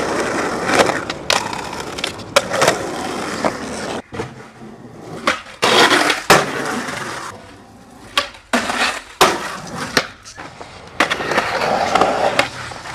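Skateboard wheels rolling on concrete, broken by many sharp clacks of boards popping and landing.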